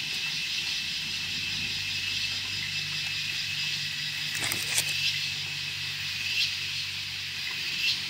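A motor hums steadily at a low pitch, with a steady high hiss behind it. Two brief clicks come about four and a half seconds in.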